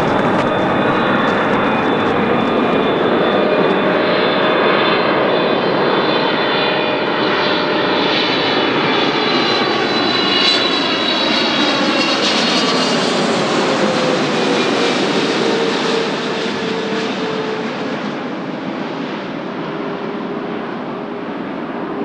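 Boeing 777 freighter's twin GE90 turbofan engines going by as it comes in to land, a loud jet noise with a whine that slides down in pitch as it passes. The sound eases off about sixteen seconds in.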